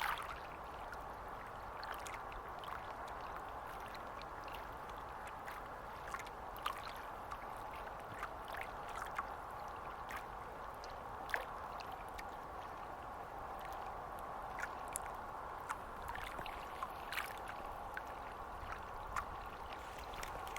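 Small waves of estuary water lapping steadily, with irregular little splashes and ticks scattered through.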